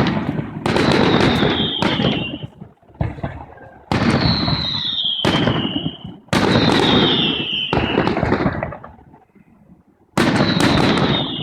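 Fireworks display: aerial shells bursting one after another, each a loud bang trailing into a rumble, about every one to two and a half seconds with short lulls between. A high falling whistle sounds with several of the bursts.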